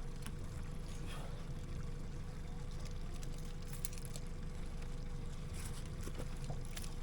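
A motor humming steadily, with a faint constant whine above the hum and a few light clicks and taps.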